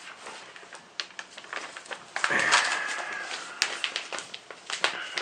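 Scattered light clicks and taps, with a brief rustle about two seconds in: small plastic model parts and a paper instruction sheet being handled.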